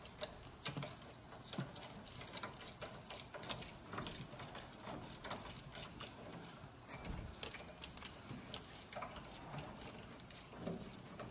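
Faint, irregular clicks and light metal taps of a socket and extension being turned by hand to thread the front wheel hub bearing's 15 mm mounting bolts.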